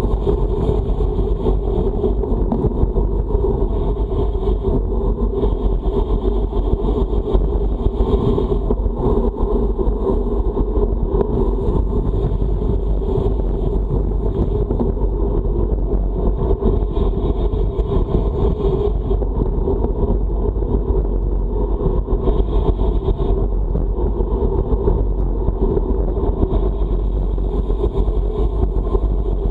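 Steady rush of wind and rolling noise on the microphone of a camera riding along on a road bike, heavy with low rumble, with no breaks.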